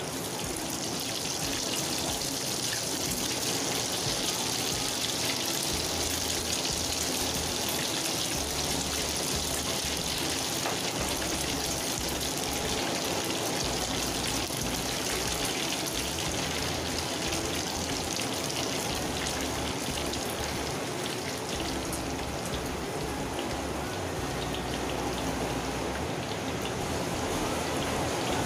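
Egg batter deep-frying in hot oil in a wok, sizzling steadily. The sizzle swells about a second in as the freshly poured batter takes hold in the oil.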